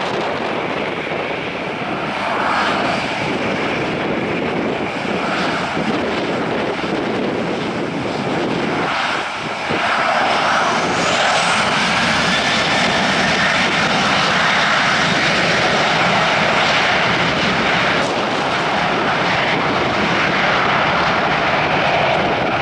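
Boeing 737-800's twin CFM56-7B turbofan engines at low thrust, then spooling up about ten seconds in with a rising whine to takeoff thrust. From there they run loud and steady, a jet rumble with a high whine over it, as the airliner begins its takeoff roll.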